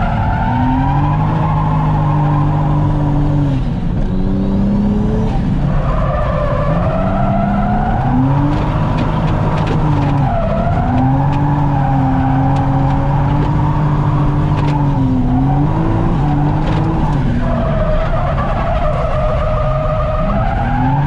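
Toyota JZX100 Mark II's turbocharged straight-six revving up and dropping back again and again through a drift lap, with the tyres squealing and skidding on rubber that is wearing out.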